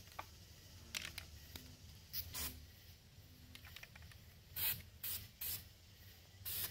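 Aerosol can of Krylon black rubberized undercoating paint spraying in short hissing bursts: a few spaced spurts in the first half, then four quicker ones about half a second apart.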